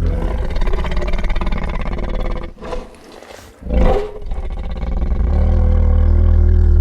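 Godzilla roar sound effect: a long harsh roar, a short break about two and a half seconds in, then a brief loud second burst. A steady deep rumble takes over near the end.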